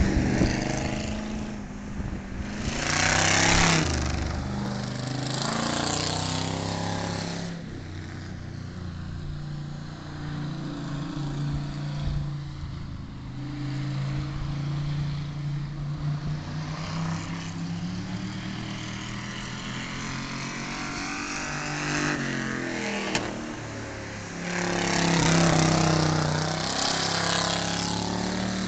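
Stock car engine running at speed on a short oval track. It grows loud as the car passes close by about three seconds in and again near the end, and it falls back to a fainter steady engine note while the car is on the far side.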